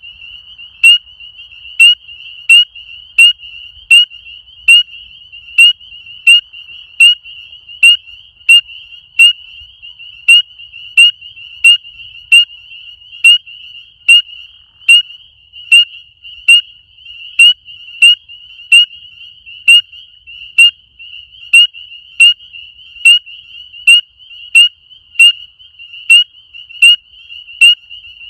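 Spring peeper calling at close range: a loud, high-pitched single peep repeated a little more than once a second, as the frog's mating call. Behind it runs a steady chorus of more distant peepers at the same pitch.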